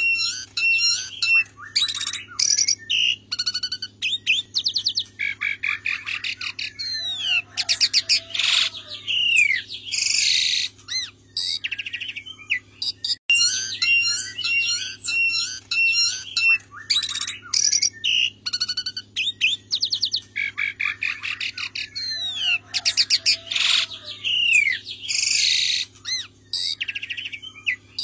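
Javan pied starling singing a long, varied song of chattering notes, whistles and rapid trills. The same roughly 15-second sequence plays twice: a looped song recording. A faint steady low hum runs underneath.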